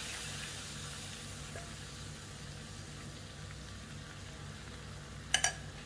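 Marinated chicken pieces sizzling gently in melted butter in a nonstick pan, a steady hiss that fades slightly. One short knock near the end.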